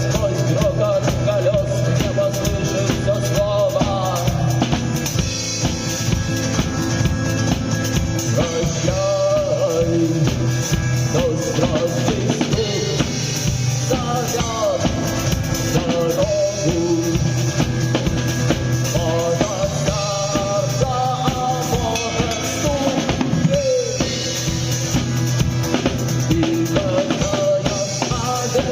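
Live rock song from a duo of a musician and a drummer, with a drum kit keeping a steady beat under the melody.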